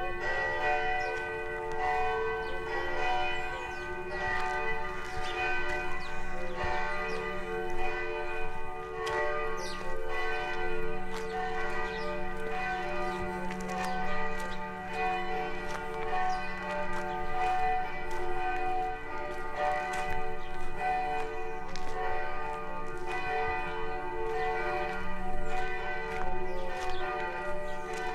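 Church bells ringing continuously, several bell tones sounding together and overlapping without a break.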